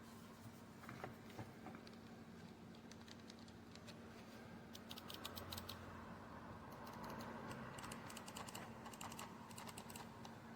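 Faint typing on a computer keyboard: quick runs of key clicks about five seconds in and again a little later, over a low steady hum.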